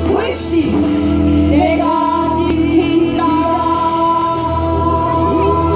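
Performance music with singing, carried by long held notes that settle in about two seconds in.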